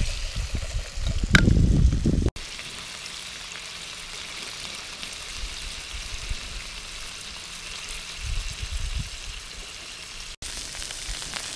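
Scallop meat and roe sizzling as they fry in a pan, a steady hiss. It opens with about two seconds of louder low rumbling noise that cuts off suddenly.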